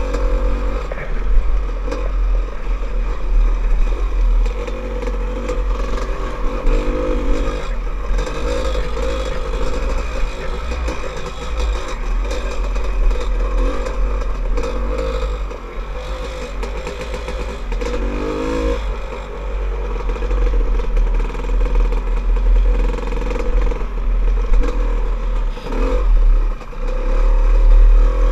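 Dirt bike engine running under way, revving up and dropping back again and again as the rider works the throttle over a rough trail, over a heavy low rumble of wind on the helmet-mounted microphone.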